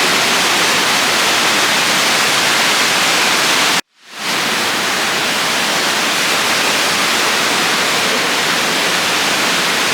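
Loud, steady static-like hiss with no pitch or rhythm. It cuts out abruptly about four seconds in and fades straight back up.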